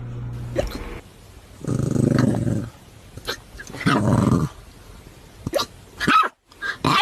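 Dog hiccupping: four short, sharp hics at irregular spacing, mostly in the second half, along with two longer vocal sounds of about a second each.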